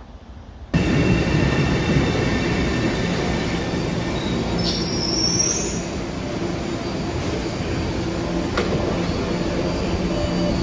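From about a second in, the loud steady noise of an MBTA Orange Line subway train at a station platform. A high squeal rises in pitch about five seconds in.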